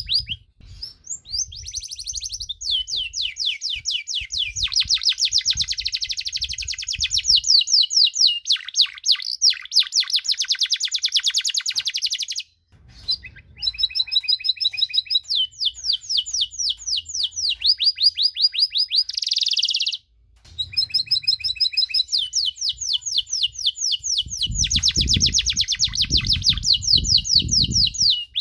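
Domestic canary singing a long song of rapid trills and rolls, with short breaks about twelve and twenty seconds in. A low rumble sits under the song near the end.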